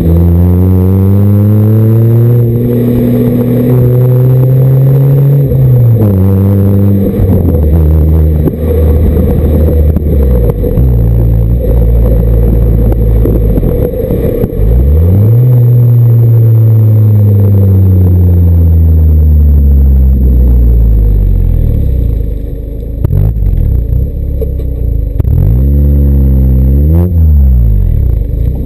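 Stock exhaust of a 2008 MINI Cooper base (R56) and its 1.6-litre four-cylinder, heard right at the tailpipe and a little distorted. The engine pulls up through the gears, its pitch climbing and dropping at each upshift, then runs with a slowly falling tone as the car slows. A quick rev rises and falls near the end.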